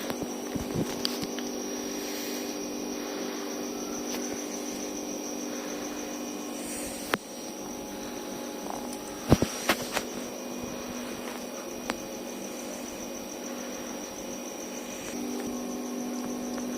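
Steady electrical hum with a faint high whine, broken by a few sharp clicks about seven seconds in and again between nine and ten seconds in.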